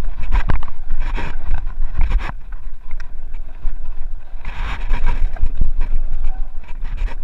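Mountain bike riding down a rough dry dirt trail: wind buffeting the microphone, with tyres rolling over dirt and the bike rattling and knocking over bumps.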